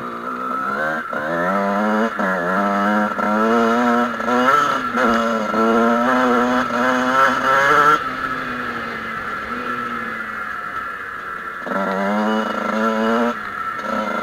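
Two-stroke Kawasaki KX motocross bike engine revving under throttle, its pitch rising and falling in quick surges every second or so. About eight seconds in it backs off and runs lower for a few seconds, then opens up again near the end.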